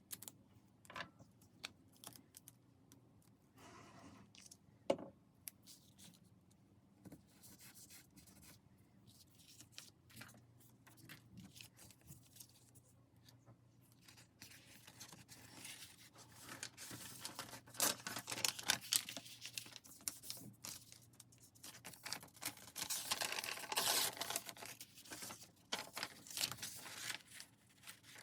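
Paper being handled in crafting work: scattered taps and clicks at first, then denser rustling, scraping and tearing of paper from about the middle on.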